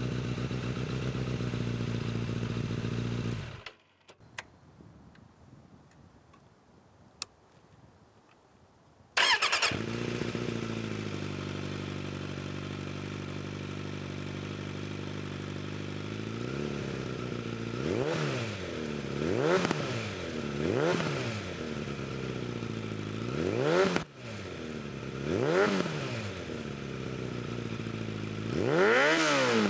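Suzuki motorcycle engine idling through its exhaust, cut off about four seconds in. After a few seconds of near quiet with two clicks, an engine starts and idles steadily. Through the second half it is blipped about seven times, each rev rising and falling quickly in pitch, the last one the loudest.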